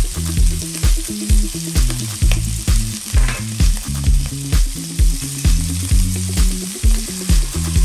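Pork belly and garlic sizzling in hot oil in a nonstick frying pan, stirred and scraped with a plastic slotted spatula. Background music with a steady beat and a bass line plays underneath, about two beats a second.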